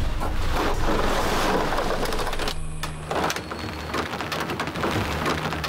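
Car tyres splashing and hissing through slush and meltwater on lake ice, a dense rushing noise that breaks off briefly about two and a half seconds in and then goes on more unevenly.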